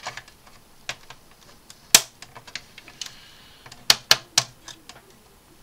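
Hard plastic clicks and taps from the Hasegawa 1/450 Akagi kit's hull halves as they are pressed and snapped together by hand: about six sharp clicks, the loudest about two seconds in and a quick run of three near four seconds.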